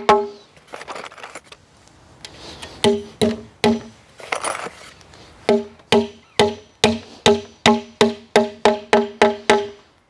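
Hammer driving nails through a steel Simpson concealed beam hanger into a glulam beam, each blow landing with a short metallic ring. One strike at the start, a pause with some handling, three quick blows about three seconds in, then a steady run of about a dozen blows, two to three a second, from about five and a half seconds in.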